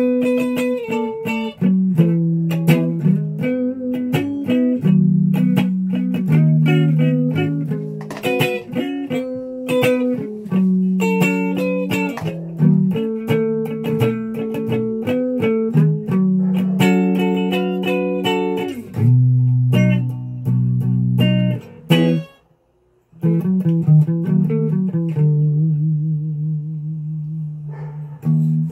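SG-style electric guitar played with a clean tone, single-note riffs mixed with chords. It stops briefly about three-quarters of the way through, then picks up again.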